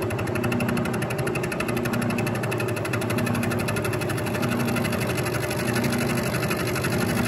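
Bridgeport Series 1 milling machine running a roughing end mill through a light final pass in climb milling on a T-nut blank: a steady machine hum with a rapid, even pulsing of the cutter's teeth in the cut.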